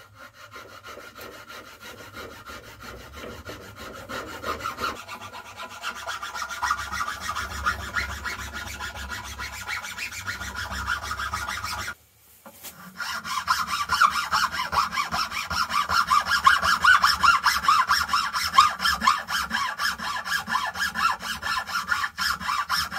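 A 4 mm round chainsaw file rasping band grooves into the fork tips of a birch plywood catapult in quick back-and-forth strokes. There is a short break about 12 seconds in, and the filing is louder after it.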